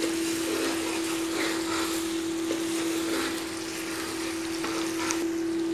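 Potatoes, fried onions and ginger-garlic paste sizzling steadily in hot oil in an aluminium kadai while being stirred with a metal slotted spoon: the paste being sautéed. A steady low hum runs underneath.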